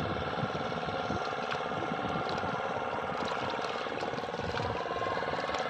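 Small motorboat engine running steadily across the water, a continuous hum, with irregular low rumbling underneath.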